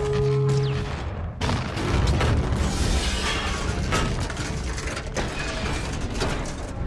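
Film sound effects of giant robots fighting: dense metallic clanking, grinding and mechanical whirring with repeated crashes and impacts, over music.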